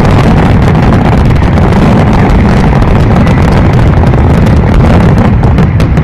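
Fireworks display in a dense barrage: a loud, continuous rumble of many overlapping bursts, with separate sharp cracks standing out near the end.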